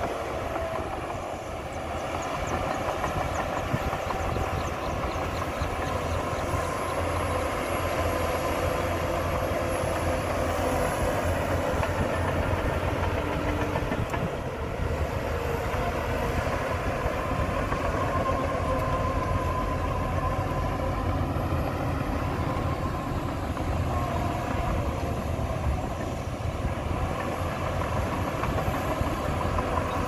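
Shantui crawler bulldozer's diesel engine running under load as it pushes dirt, with a steady clatter from its steel crawler tracks.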